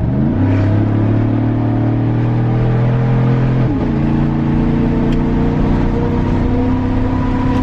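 2015 Chevrolet pickup's V8 running with its muffler and resonator cut off, only the catalytic converter left, heard from inside the cab with the windows down. The engine note climbs as the truck accelerates, then dips once about four seconds in as the transmission shifts up and settles into a steady drone with a little rumble.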